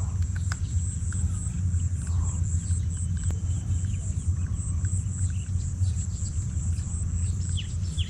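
Outdoor ambience: wind rumbling on the microphone under a steady high-pitched insect drone, with a few faint short bird chirps.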